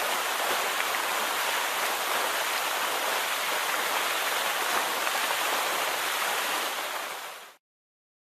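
Steady hissing noise with no pitch or rhythm, fading out about seven seconds in and ending in silence.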